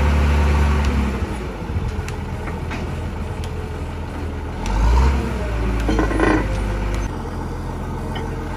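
Truck-mounted borewell drilling rig's engine running steadily. It is louder at the start, eases off, swells again at about five seconds in and settles back about seven seconds in, with a few light clicks and a brief clatter about six seconds in.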